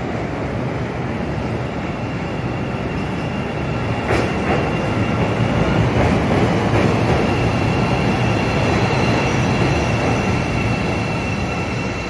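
CTA Pink Line 'L' train pulling into an elevated station and slowing, its cars rumbling and clacking over the rails. It grows louder about four seconds in as the cars reach the platform, with a high steady whine over the rumble from then on.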